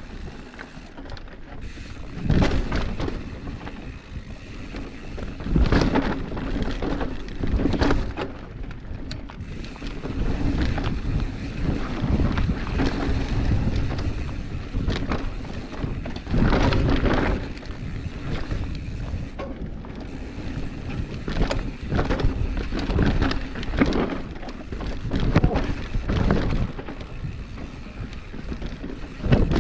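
Pivot Switchblade mountain bike descending a downhill trail: tyres rolling over dirt and the bike rattling, with repeated sudden thumps from bumps and landings, and wind rushing on the microphone.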